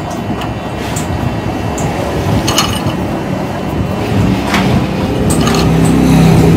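Metal clinks and scraping as a steel rod-end eye is screwed by hand onto a threaded shaft, levered round with a steel bar, over steady workshop machine noise. A machine's hum builds from about four seconds in.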